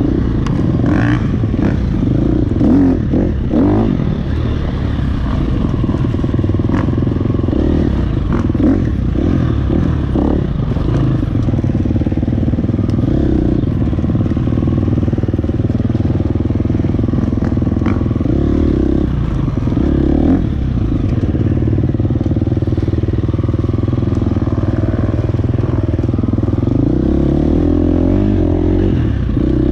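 Off-road dirt bike engine running steadily under varying throttle, close to the camera on the bike being ridden, with knocks and rattles from the bike over the rough trail. The engine pitch rises and falls near the end.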